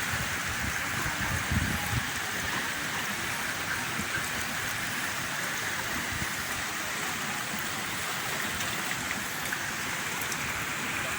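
Heavy typhoon rain falling steadily, a constant even hiss, with a few low bumps in the first couple of seconds.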